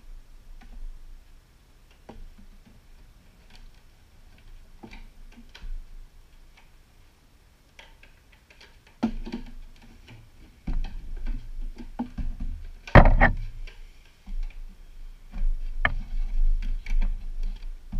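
Handling noises of a costume shin armor piece with Velcro strips being fitted and closed: scattered small clicks and rubbing, busier in the second half, with a louder short noise about thirteen seconds in.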